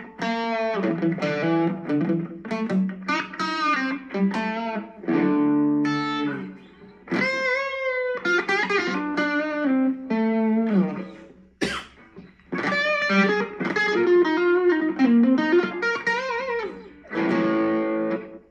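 Humbucker-equipped Korean-made Legend Les Paul Custom electric guitar played through an amp: picked single-note lead phrases with bent and wavering notes, separated by short pauses, and a short sharp click about halfway through.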